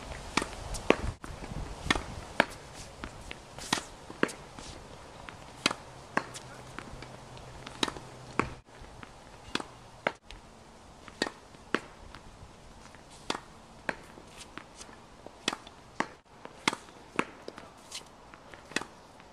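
Tennis ball being hit by rackets and bouncing on a hard court during a baseline rally: a string of sharp pops, about one or two a second, some loud and close, some fainter from the far end.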